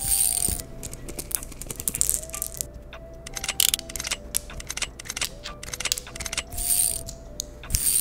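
Metal fidget toy being handled: small metal cylinders clicking against and into a metal disc, many quick, irregular clicks with short ringing tones.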